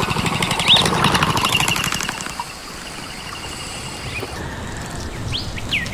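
Forest ambience: a steady background hiss with bird calls, a short rising whistle about a second in, and a run of sweeping up-and-down whistled bird notes near the end.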